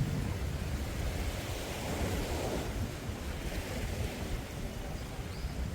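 Waves washing onto a sandy beach, rising in a swell about two seconds in, with wind buffeting the microphone.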